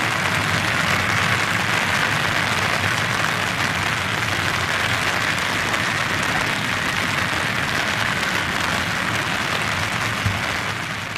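Heavy rain falling steadily, an even patter with no change in strength, starting to fade near the end.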